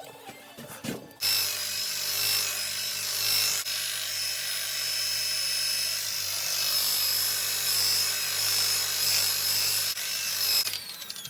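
Electric power tool running steadily with a high whine, starting about a second in and cutting off near the end.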